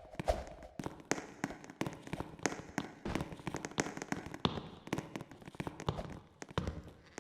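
A rapid, irregular series of sharp clicks and taps, several a second.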